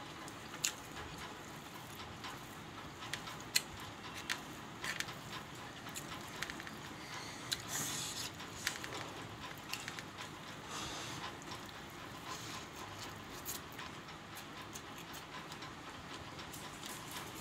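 A person eating by hand: scattered soft clicks and smacks of chewing and of fingers working rice on a plate, over a steady low hiss, with a denser spell of chewing noise around eight seconds in.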